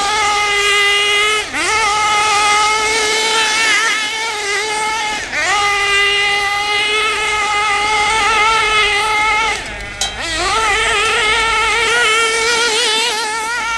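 Kyosho MP9 buggy's KE21 .21 nitro engine at high revs as the buggy is driven, its note holding steady, then dropping and climbing back three times as the throttle is lifted and reopened. There is a short sharp click at the third dip. The engine is running with a high-speed needle that, by the owner's account, is backing out by itself and richening the mixture, because its O-ring seal has gone.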